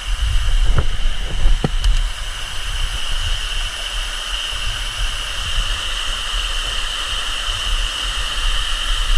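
Steady rush of a waterfall, with a constant high-pitched hum over it and a few light knocks in the first two seconds.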